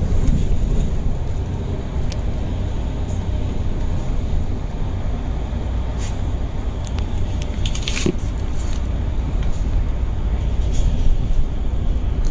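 A double-decker bus running through a road tunnel, heard from inside the bus: a steady low rumble, with a few short clicks and rattles, the sharpest about eight seconds in.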